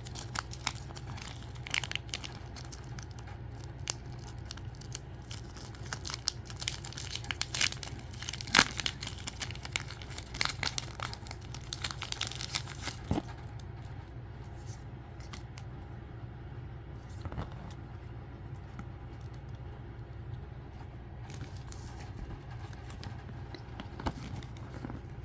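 A photo card pack's packaging being torn and crinkled open by hand. There is busy crackling and tearing for the first dozen or so seconds, then sparser rustles, with a steady low hum underneath.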